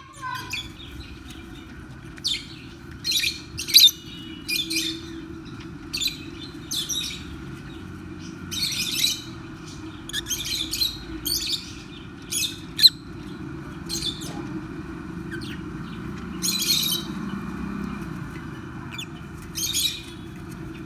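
Rosy-faced lovebirds giving short, sharp, shrill chirps, repeated irregularly about once a second, over a steady low background hum.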